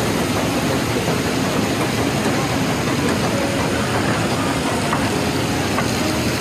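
Steady din of a large shopping-mall atrium heard from a moving escalator: an even rushing noise with faint, scattered traces of distant voices.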